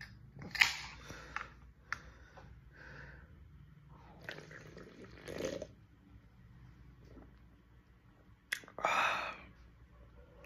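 A person sipping and swallowing a drink from an aluminium can, with a few short noisy bursts. The loudest comes near the end.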